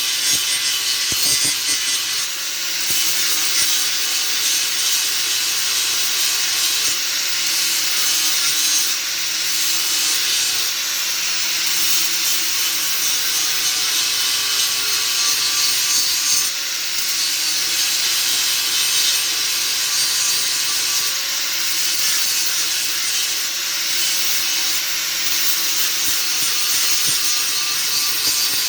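Electric grinder running continuously, its wheel rasping against deer antler as pieces are ground flatter and thinner, with a steady motor hum underneath.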